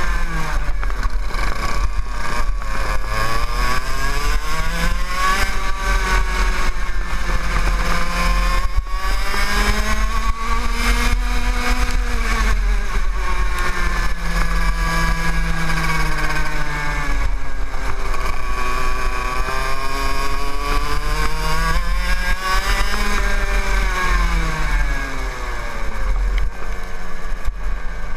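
TAG kart's two-stroke engine running under the seat, its pitch climbing and dropping again and again as the driver accelerates down the straights and lifts for the corners. Near the end the revs settle lower as the kart slows off the circuit.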